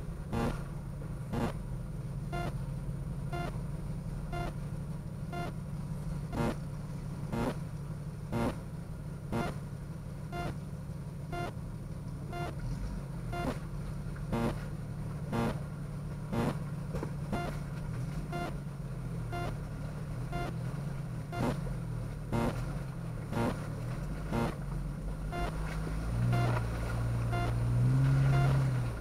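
Jeep engine running at low trail speed, a steady low drone, with a sharp tick about once a second. The engine swells louder for a couple of seconds near the end.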